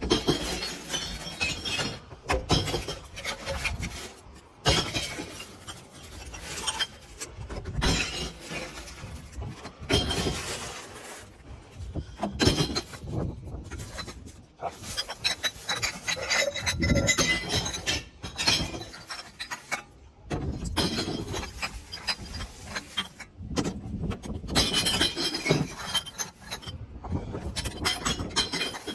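Small glass beer bottles dropped one after another into a street bottle bank, each clinking and clattering against the glass already inside, with many impacts in quick succession.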